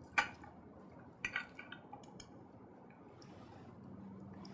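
Knives and forks clinking and scraping on dinner plates: a few sharp clinks, the loudest just after the start and another pair about a second later.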